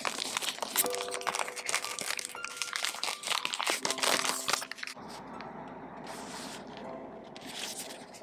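Plastic wrapping of a pack of notebook refills crinkling as it is pulled open by hand, loud and crackly for about five seconds and then softer. Soft background music with sustained notes plays underneath.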